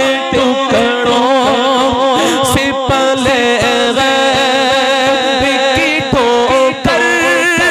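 A man singing an Urdu naat into a microphone, one long wavering melodic line with no clear words, over a steady lower drone. Short low thumps keep a beat about two or three times a second.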